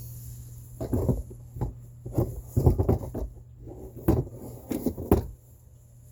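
Irregular knocks and bumps, about a dozen over four seconds, the kind made by handling and setting down things against wood, over a steady low hum.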